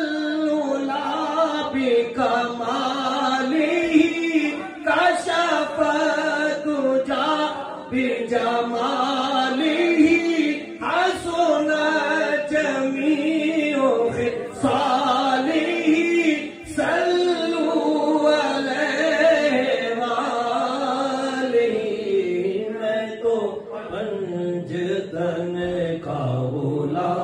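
A man singing a naat, a devotional poem in praise of the Prophet Muhammad, solo into a microphone. He sings in long chanted melodic phrases with brief breaks between them.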